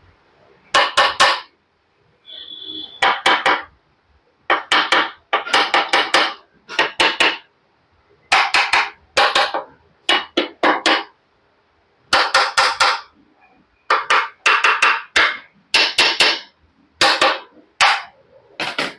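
Hammer blows on steel tooling against an aluminium motorcycle crankcase, in quick clusters of two to five ringing strikes with short pauses between. This is the typical sound of tapping the two crankcase halves of a Royal Enfield Classic 500 engine together.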